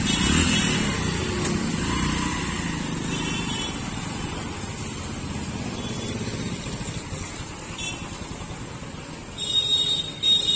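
Road traffic crossing a railway level crossing: motorcycle and auto-rickshaw engines running past, loudest at first and easing off as the traffic thins. Near the end come a few short, sharp, high-pitched sounds.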